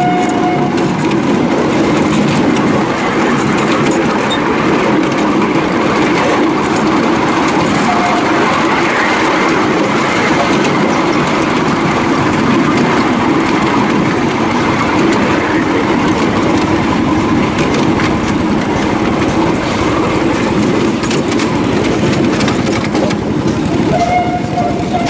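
Miniature railway train running: a steady rumble and rattle of wheels on the track, heard from aboard. A brief steady tone sounds near the end.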